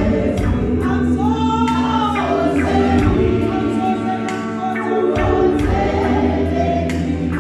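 Women's choir singing a gospel song in harmony. Low, steady bass notes sound beneath the voices and change pitch about three seconds in and again about five seconds in.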